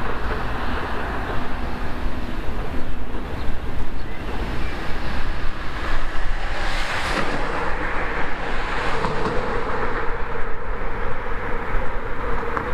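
Freight train of covered wagons rolling past: a steady rumble and clatter of wheels on rail, with a steady whine setting in about seven seconds in.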